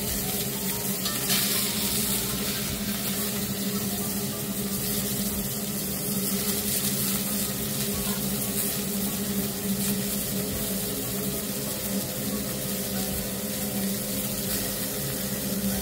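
Wagyu sirloin steak searing in oil in a hot cast-iron pan, a steady sizzle on its second side just after flipping. A steady hum from the stove's vent fan runs underneath.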